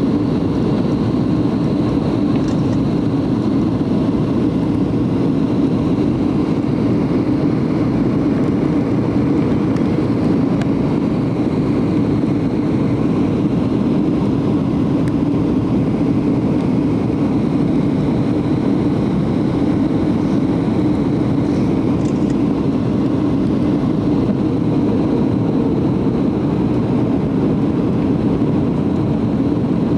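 Steady cabin noise of a Boeing 737-700 on approach, heard from inside the passenger cabin: its CFM56-7B jet engines and the rushing airflow make an unbroken low rumble with a faint thin high tone above it.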